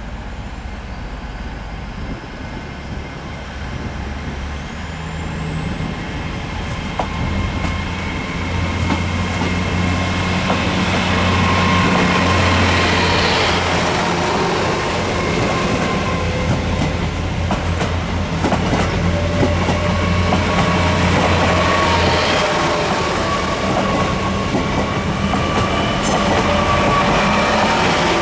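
Great Western Railway Class 802 bi-mode train pulling away on its underfloor diesel engines, getting louder as it gathers speed. A high electric whine rises in pitch over the first ten seconds or so, then holds steady, over a low engine hum, with wheels clicking over the rail joints.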